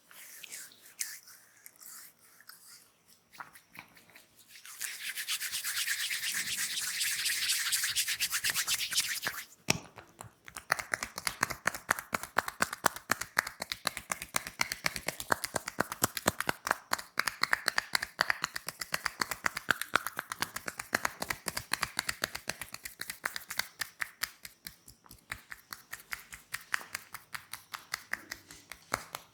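Hands working on bare skin during a back massage: about five seconds of brisk rubbing, then fast, rhythmic tapping strokes, several sharp slaps a second, that run on to the end.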